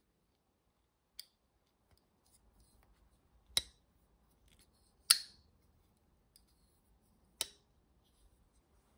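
Hansen Sever liner-lock folding knife being worked open and shut: four sharp metallic clicks a second or two apart, the third the loudest, as the blade snaps in and out of its detent and lock.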